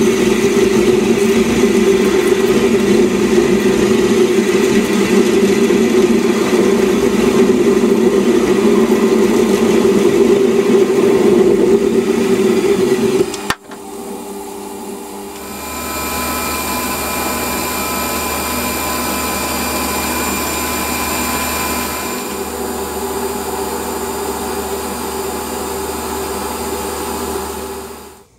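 Metal lathe running while a cutting tool turns a spinning metal workpiece, a steady loud machine sound. About halfway through the sound breaks off sharply and resumes quieter, with a steady whine over a low hum.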